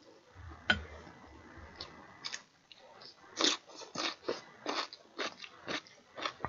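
Close-miked chewing and wet mouth smacks of a man eating spoonfuls of rice and sausage stew, with a sharp click under a second in. From about three seconds in the smacks get louder and more regular, roughly two a second.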